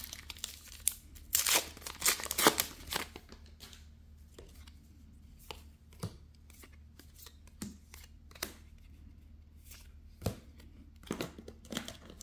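A foil trading-card booster pack being torn open and crinkled, with a cluster of loud wrapper crackles in the first few seconds. Then sparse soft clicks and snaps as the cards are handled and flipped through.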